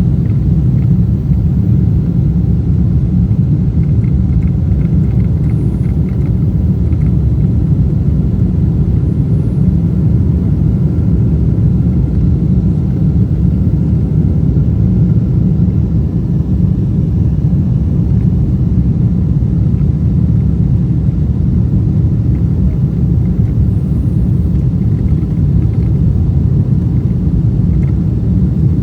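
Steady low rumble inside the cabin of a Boeing 777-300ER in flight, from its two GE90 turbofan engines and the airflow around the fuselage.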